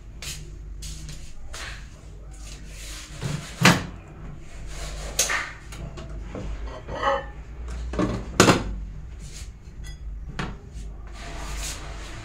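Kitchen handling sounds: cupboard doors and drawers opening and closing and dishes being set down, a string of knocks and clatters with two louder bangs about four and eight seconds in.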